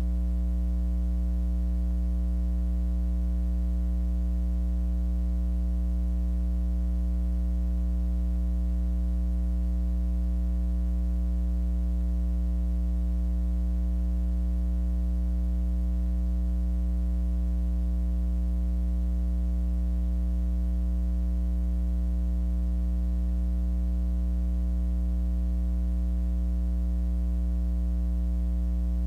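Steady electrical mains hum, a low buzz with its overtones that never changes. No game sounds come through it.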